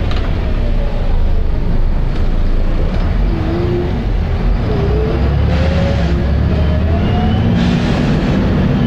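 Volvo B7RLE bus's six-cylinder diesel engine running hard under load, with a whine that rises in pitch as the bus accelerates. Two short bursts of air hiss come about halfway through and near the end.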